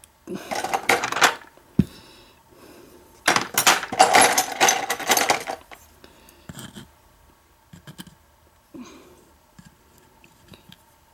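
Small lock pins and springs clattering out of a padlock's cylinder into a pinning tray: two bursts of metallic rattling, the second about two seconds long, then a few light clicks.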